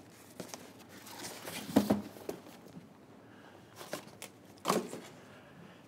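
Cardboard packaging being handled and moved: scattered rustles and light knocks, with a sharp thump about two seconds in and another near five seconds.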